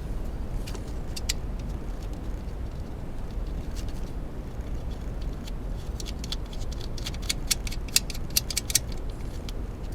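Light metallic clicks and taps of a bolt, nut and new ignition coil being handled and fitted into place by hand, with a quick run of clicks near the end, over a steady low background hum.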